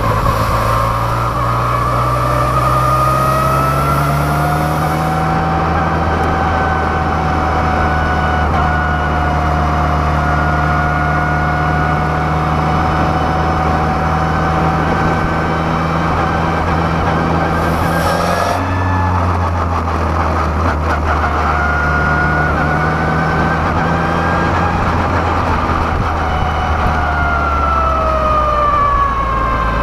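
Formula Renault 2.0 race car's 2.0-litre four-cylinder engine running under load from the cockpit, its pitch rising and falling with the throttle. The note breaks briefly about eighteen seconds in, then climbs again and falls away near the end.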